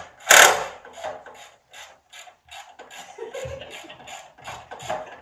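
A series of short, sharp mechanical clicks and knocks, roughly three or four a second, from tool or mechanism work, after a loud burst just after the start.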